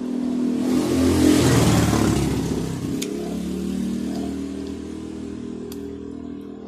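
Road traffic: a motor vehicle passes close by, its engine and road noise swelling to a peak about a second and a half in and then fading as it moves away, over a steady engine hum.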